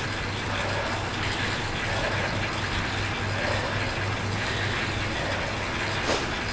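Indoor bicycle trainer and drivetrain whirring steadily under continuous pedalling at a high cadence, with a constant low hum. There is one short click about six seconds in.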